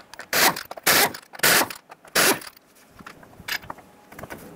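Air impact wrench with a 19 mm socket spinning the loosened lug nuts off a wheel, four short spins in the first couple of seconds.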